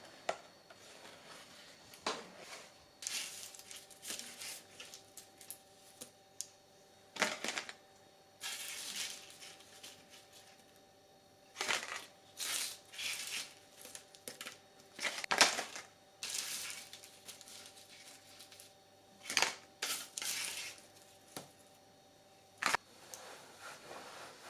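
Kitchen food-prep handling sounds: scattered knocks, clicks and short scraping or rustling noises from utensils and ingredients being worked, over a faint steady hum.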